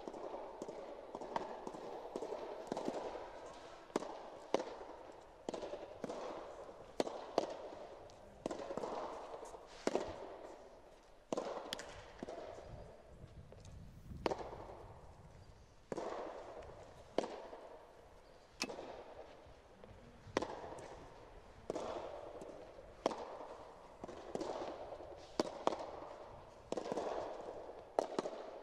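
Soft tennis rally: rackets striking the rubber ball and the ball bouncing on the court, sharp pops roughly once a second, each trailing a short echo.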